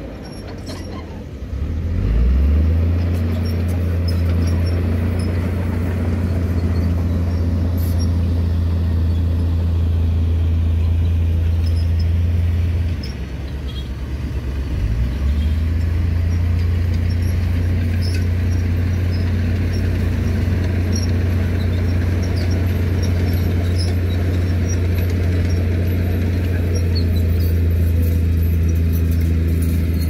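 Heavy diesel engines of a Komatsu crawler bulldozer and a dump truck working under load, a steady low drone. It eases off near the start and again about thirteen seconds in, then picks back up.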